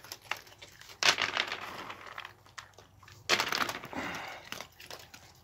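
Raccoons chewing and crunching food on a wooden deck, in two noisy spells of crunching about a second in and again around three seconds in, with scattered clicks between.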